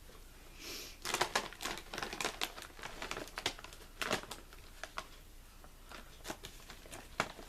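Lay's Smoked Gouda & Chives potato chips crunching as they are chewed close to the microphone. A dense run of crackling starts about a second in, followed by scattered sharp crunches.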